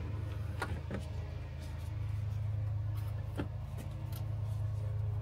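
MasterCraft MCX 350 V8 inboard engine idling steadily, drawing its cooling water from a hose-fed bucket. A few light knocks sound over it.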